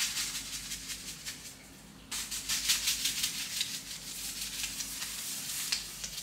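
Dry seasoning shaken out of a container over a pan of buckwheat cooking in broth, making a fast, maraca-like rattle, with the pan sizzling underneath. The rattle and sizzle drop off briefly, then come back suddenly louder about two seconds in.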